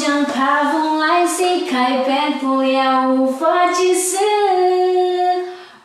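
A woman singing a Mandarin song unaccompanied, holding long notes, the longest one near the end.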